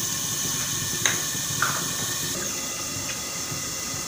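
A covered pot of spice masala frying in oil on a gas stove, giving a steady sizzling hiss as the masala browns and the oil separates. There are two faint clinks about a second in and a second and a half in.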